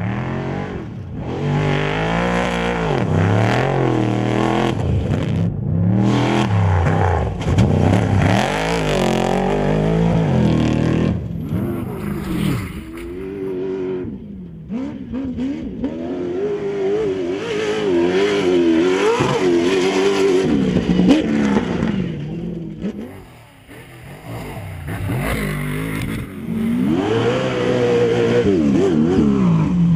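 Engines of off-road desert race vehicles running hard, each note climbing and dropping back again and again as they rev and shift, with several vehicles passing in turn. The sound eases briefly about three-quarters of the way in.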